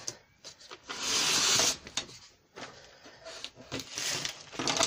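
Clear plastic packaging rustling and crinkling as it is handled, loudest for about a second starting about a second in, with light taps and clicks of small objects being moved on a desk.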